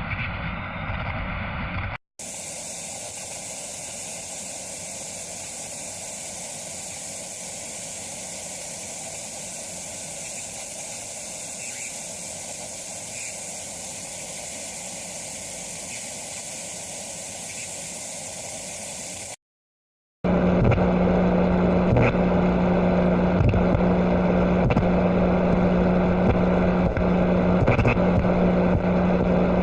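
Abstract sound effects played one after another. A steady hiss-like noise runs for about seventeen seconds and stops dead. After a second's silence, a louder noisy drone with a strong low hum and faint pulses begins.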